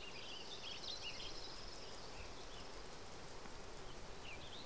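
Faint natural outdoor ambience: high chirps and twitters, with a fast trill in the first second or so, over a low steady hiss.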